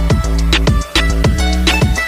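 Background music: a pop track with a steady beat of about four hits a second over a sustained bass.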